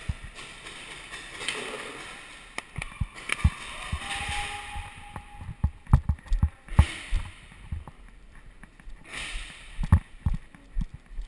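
Irregular thumps and knocks with a few short bouts of hiss, the sounds of a paintball player moving on foot in his gear: footsteps and gear bumping on a hard floor.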